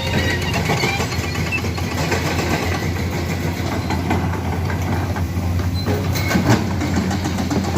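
Komatsu hydraulic excavator's diesel engine running steadily at work, with a short clank about six and a half seconds in.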